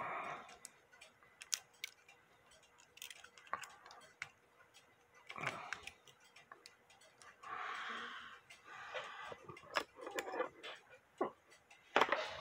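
A brass clock movement being handled and turned over in the hands: scattered, irregular small metallic clicks, with a few brief rustling handling noises.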